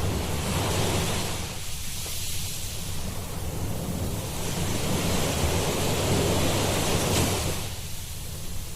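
Ocean surf washing onto a beach, a steady rush of noise that swells and eases, fading a little near the end, with a low wind rumble on the microphone.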